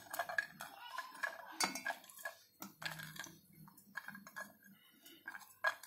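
Garlic cloves dropped one at a time from a small steel bowl into a steel mixer-grinder jar, making a scatter of light, irregular clinks and taps of steel.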